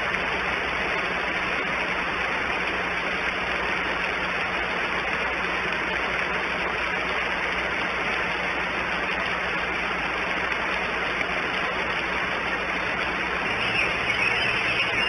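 Steady hiss-like outdoor background noise with a faint low electrical hum, picked up by the eagle nest camera's microphone. Near the end it grows a little louder as the adult bald eagle stands up off the eaglets.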